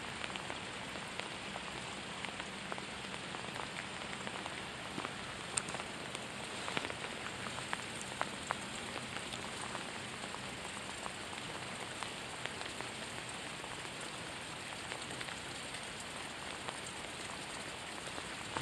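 Pouring rain falling on a lake surface: a steady hiss with many scattered close drop ticks.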